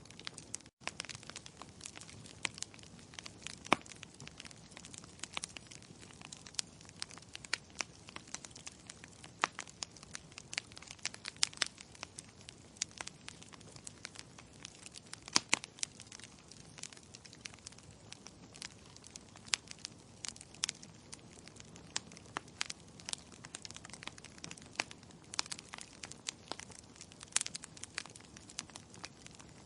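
Wood logs burning in a fireplace: irregular crackling over a soft steady hiss, with occasional louder sharp pops. The sound drops out for an instant about a second in.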